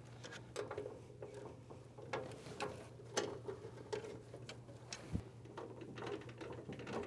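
Faint, irregular small clicks and scrapes of a hand screwdriver driving screws to fasten a relay's rear mounting plate to its front panel.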